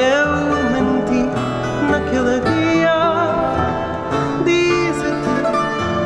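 Live fado: a male voice singing held, wavering notes over plucked Portuguese guitar, classical guitar (viola) and bass.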